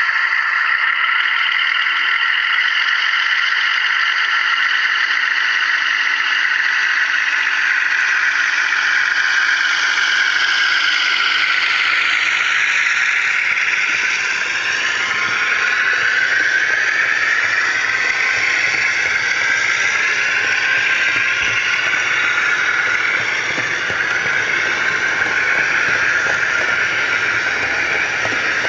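DCC sound decoder in a model Western diesel-hydraulic locomotive playing its twin diesel engines working as the train pulls away, heard through the model's small speaker with a squealing edge. The engine notes bend and shift a few seconds in, then run on steadily.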